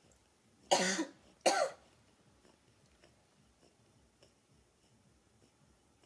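Two coughs in quick succession, the first a little under a second in and the second about half a second after it.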